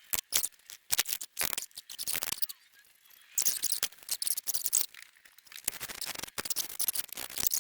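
Metal clinking and rattling, with a stretch of scraping in the middle, as the old electric PTO clutch is wiggled loose and worked off the mower's engine shaft.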